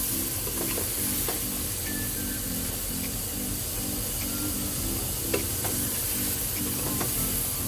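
Goat feet frying in oil and masala in an open pressure cooker: a steady sizzle, with a few sharp knocks of a wooden spoon against the pot as it stirs. Background music with a repeating low pattern plays under it.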